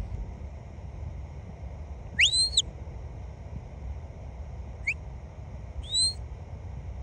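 Three shepherd's whistle blasts, the handler's whistle commands to a herding dog: a rising note held briefly about two seconds in, a short rising chirp near five seconds, and another rising, held note about six seconds in.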